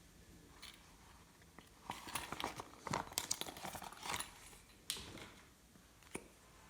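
Glossy slime being pressed and stretched by hand: a flurry of sticky clicks and crackles lasting about three seconds, then a single click near the end.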